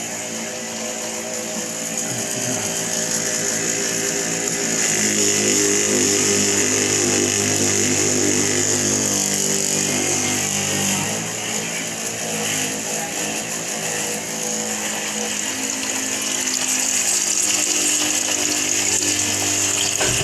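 The 12-volt water pump of a battery-powered portable water heater running steadily, a humming motor with a steady hiss of water and air; the hum shifts in pitch a few times. Air is being drawn into the line somewhere, which the owner takes for a leak on the quick-disconnect fittings.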